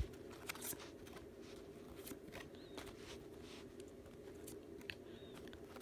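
Faint ticks and rustles of trading cards being handled and flipped, scattered over a steady low hum.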